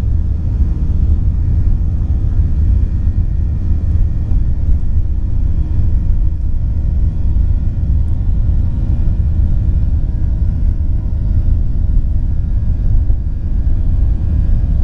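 Boeing 737-800's CFM56-7B jet engine heard from inside the cabin: a steady low rumble with faint steady tones above it.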